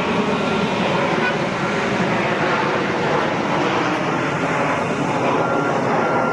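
Steady vehicle and traffic noise, with a reversing alarm beeping at an even pitch, faint at first and regular near the end.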